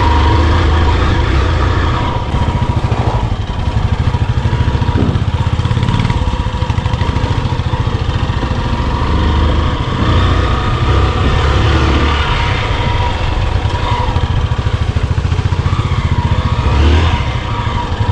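Hero XPulse 200's single-cylinder engine running steadily as the motorcycle rides an off-road trail, the throttle rising and falling with a few short revs.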